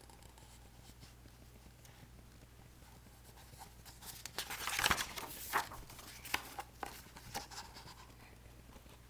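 Paper rustling and clicking as picture-book pages are handled and turned, a scatter of short sounds starting about four seconds in over a faint steady hum.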